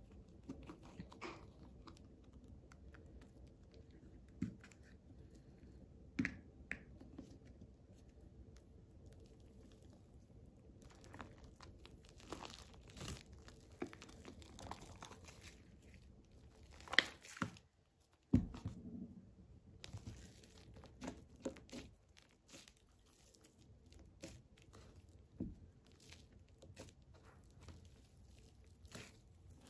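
Hands squishing and stretching thick white foam slime: faint sticky crackles, small pops and wet snaps at an uneven pace, with the loudest snaps a little past the middle.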